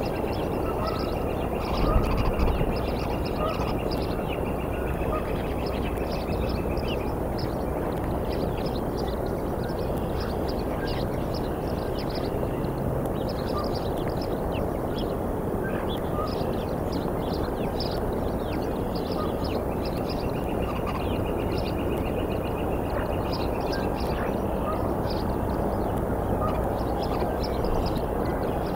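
Outdoor bird calls: many short, high chirps repeating throughout, and a long trill twice, about a second in and again around twenty seconds, over a steady rushing background. A brief knock comes about two seconds in.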